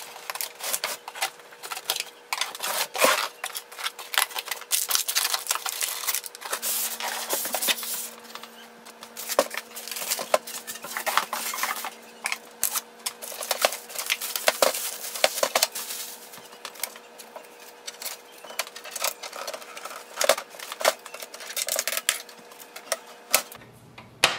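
Unboxing noises from a printer's packaging: tape on the cardboard box being cut, cardboard and packing material handled and plastic wrap taken off the printer, giving an irregular stream of crackles, rustles, taps and knocks. A faint steady hum runs underneath.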